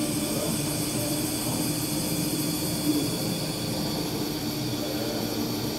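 Portable hydrogen water bottle generator running its electrolysis cycle, giving a steady hum with a hiss over it.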